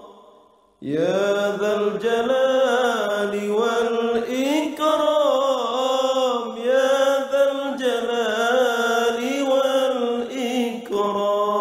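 Islamic dhikr chanted by a solo voice: one long drawn-out melismatic phrase that starts about a second in, its pitch wavering and sliding, and fades away near the end.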